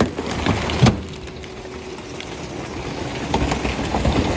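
Food containers being handled while a fridge is cleared out: a sharp knock about a second in, then light clicks and rattles over a low steady rumble.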